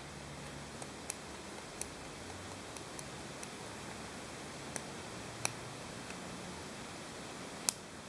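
Steel forceps clicking as they pick and snip at the crusty scale on a currawong's toe, a crust thickened by a scaly leg mite infestation. The clicks are scattered, sharp and irregular, the loudest near the end, over a faint steady hiss.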